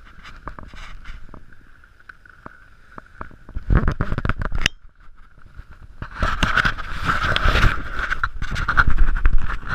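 Skis sliding and scraping on packed snow, with wind and rubbing noise on the action camera's microphone. A short loud scrape comes about four seconds in, as on a skidding stop, then louder rough scraping and rumbling from about six seconds in.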